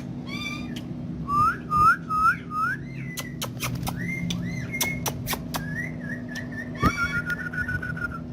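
A parrot whistling: a run of four short rising whistles, then longer held whistled notes. Sharp clicks sound throughout.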